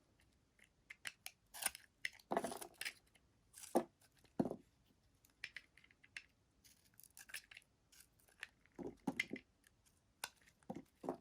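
A knife cutting through soap: an irregular run of short crisp cuts and crunches, with a few slightly longer scraping strokes.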